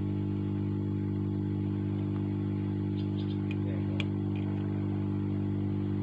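Hot-air rework gun blowing on the charging connector of a tablet's circuit board to melt its solder and lift it off, its fan giving a steady hum. A few faint light ticks come about three to four seconds in.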